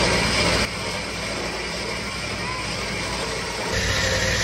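Vehicle engine running steadily during a winch recovery on a slope. The sound drops abruptly about two-thirds of a second in and changes again near the end.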